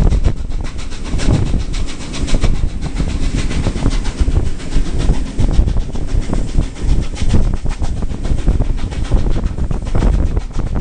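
Train wheels rumbling and clattering over rail joints and points as the carriage runs along the track: a fast, uneven stream of clicks over a steady low rumble.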